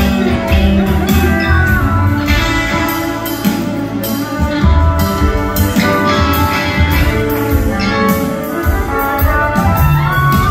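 Live band playing an instrumental passage, recorded from the audience in a theatre: drums strike a steady beat under upright bass, guitar and keyboards.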